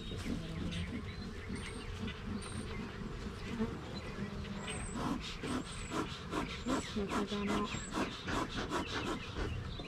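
Honeybees buzzing around an open hive in a steady low hum. From about halfway on comes a run of quick clicks and knocks, several a second.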